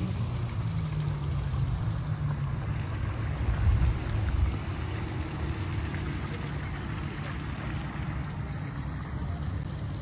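Steady low rumble of outdoor background noise.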